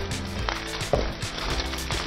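Background music, with the fizzing hiss of a Diet Pepsi and Mentos soda geyser spraying foam underneath it.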